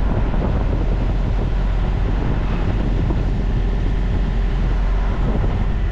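Semi truck's diesel engine idling: a steady low rumble.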